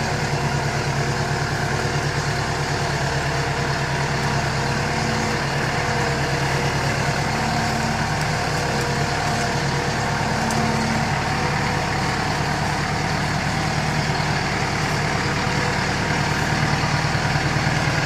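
LS 4047 compact tractor's 47-horsepower diesel engine running steadily as the loader/backhoe tractor drives along.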